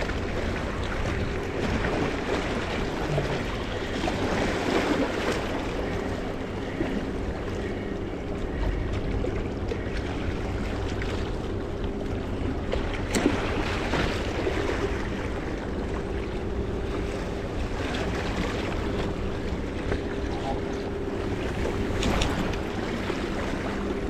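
Sea water washing against a rocky shore, with wind on the microphone and a steady low engine hum over it. A single sharp click comes a little past halfway.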